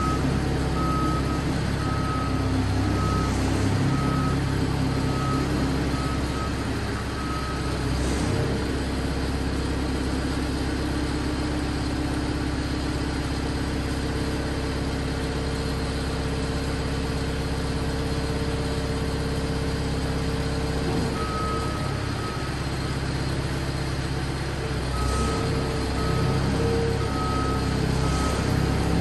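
Engine of a self-propelled hydraulic boat trailer running steadily while the trailer moves a yacht. Its reversing alarm beeps about one and a half times a second, falls silent for about a quarter of a minute after seven or eight seconds, and starts again.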